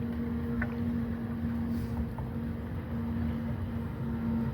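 Steady low mechanical hum with a constant tone, like a motor running, and a few faint small ticks.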